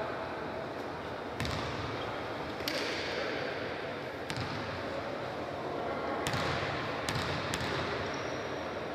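Basketball bouncing on a hardwood court, about six separate thuds spaced irregularly, each ringing briefly in the hall, over a steady murmur of the arena.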